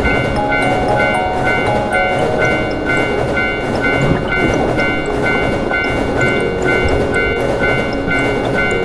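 Railroad crossing warning bell ringing steadily, about two strikes a second, over the rumble and clatter of a passing train, with music underneath.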